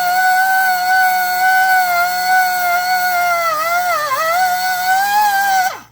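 Small high-speed rotary tool running with a steady whine; its pitch sags briefly about two-thirds of the way in, as if loaded against the stone, then it drops in pitch and cuts off near the end as it is switched off.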